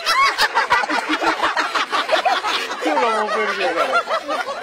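People laughing hard, several voices overlapping in quick repeated bursts, with a falling run of laughs about three seconds in.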